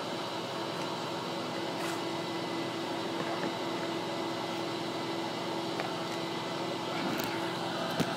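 Two Lamb vacuum motors of a Savage 1 electric truckmount carpet-cleaning extractor, wired in parallel, running steadily with an even hum and one held tone. A single sharp knock comes near the end.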